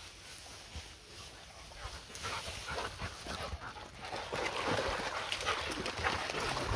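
A dog panting and whining, the sound growing louder and busier from about two seconds in.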